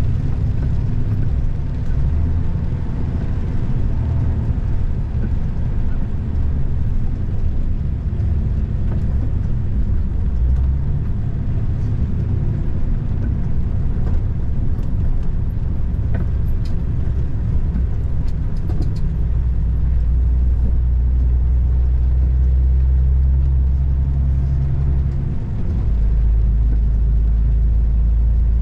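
A car driving along a road, a continuous low rumble of engine and tyres. The drone shifts and grows steadier about two-thirds of the way through, and again near the end.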